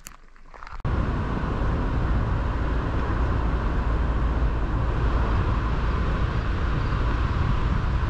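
A car driving: steady engine and tyre noise that cuts in suddenly about a second in.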